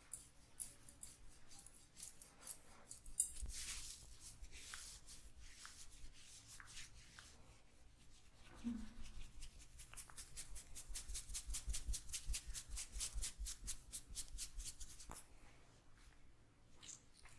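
Hands working through hair and scalp in a head massage, making sharp crackles and snaps from hair cracking. Partway through they speed up into a fast, even run of about five a second that lasts some five seconds.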